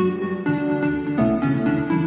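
Soft instrumental background music, with gentle held notes changing every half second or so.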